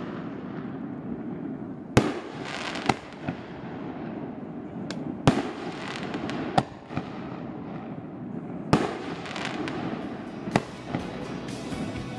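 Aerial firework shells bursting: a string of sharp bangs at irregular gaps of about half a second to two seconds, over a steady background of noise.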